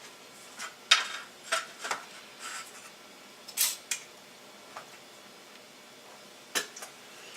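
Aluminium foil ducting tape being pulled off its roll and handled: scattered short crinkles and rustles, about ten in all, with a longer one just past the middle.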